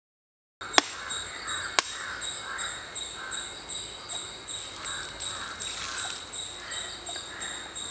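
Outdoor ambience: crows cawing over a steady, high, rapidly pulsing chirp. Two sharp clicks come about a second apart near the start.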